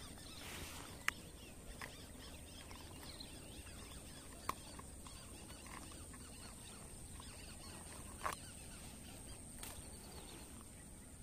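Quiet outdoor ambience: faint scattered bird chirps over a steady high-pitched hum and a low rumble, broken by a few sharp clicks, the loudest about a second in and another a little before the middle.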